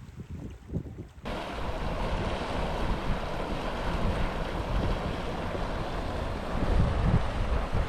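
Wind buffeting the microphone, then from about a second in a steady rush of river water, with some wind rumble underneath.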